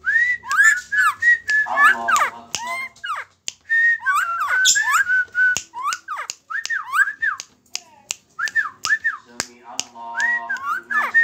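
A person whistling quick rising-and-falling notes through pursed lips, mixed with many sharp clicks, to a hand-held young bird. Lower, buzzier sounds come in about two seconds in and again near the end.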